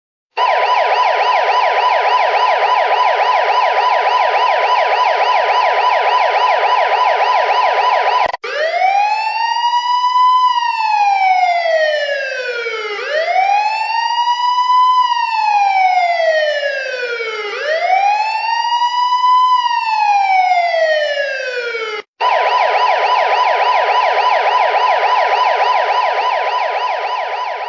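Electronic police siren. A fast yelp warbles up and down, then switches abruptly about a third of the way in to a slow wail that climbs and falls three times. It switches just as abruptly back to the fast yelp, which fades near the end.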